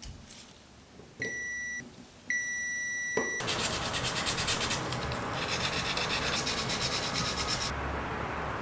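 Two electronic beeps, a short one and then a longer one, followed about three seconds in by a loud, steady rasping noise with a fast flutter, as of a tool or machine grinding or rubbing on metal.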